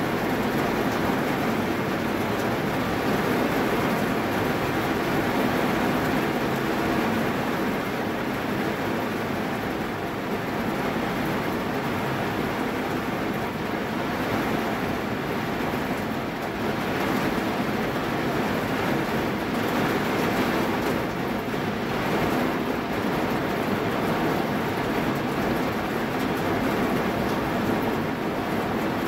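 Heavy rain falling steadily, heard from inside a car's cabin as an even hiss on the roof and windows.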